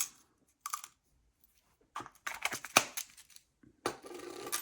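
Rustling and light clicks of small metal crimp terminals being handled at a workbench: a burst of clicks about two to three seconds in, and a longer rustle near the end.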